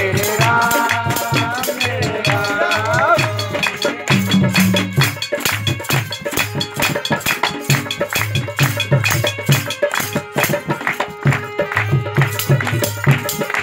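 Instrumental stretch of Hindu devotional kirtan music. A melody with sliding notes plays for the first few seconds over a steady, fast beat of drum strokes, shakers and hand claps; after that the rhythm carries on alone.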